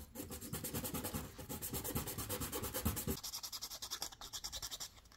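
A small painted 3D-printed plastic part rubbed back and forth on sandpaper in quick short strokes, sanding its edges and bottom. From about three seconds in, the scratching gets lighter and thinner.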